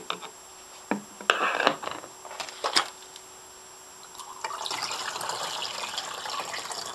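A few sharp knocks and clicks of plastic bottles and a plastic funnel being handled. Then, about four seconds in, a steady stream of liquid algae culture is poured through the funnel into a plastic bottle.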